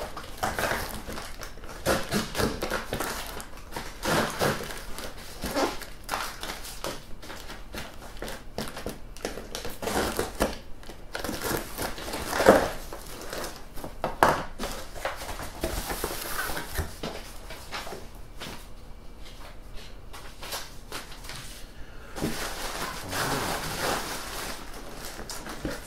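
A taped cardboard box being cut open and handled: irregular scraping, cutting and rustling of cardboard and packing tape, with one loud knock about halfway through. Plastic wrapping crinkles near the end as it is pulled out of the box.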